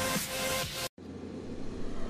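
Background music: a pulsing electronic dance track cuts off suddenly about a second in, and a quieter, swelling track begins after a brief dropout.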